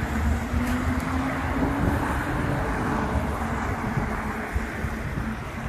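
Road traffic going by, with wind rumbling on the microphone; a vehicle's steady hum stands out over the first couple of seconds.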